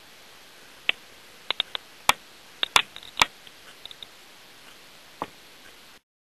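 About a dozen irregular sharp clicks and ticks over a faint steady hiss, bunched most thickly in the middle. The sound cuts off suddenly near the end.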